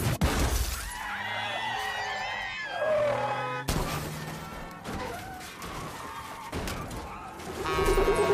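Film soundtrack of a crash: a sudden impact at the start, then people screaming, a second crash about three and a half seconds in, with music underneath that swells near the end.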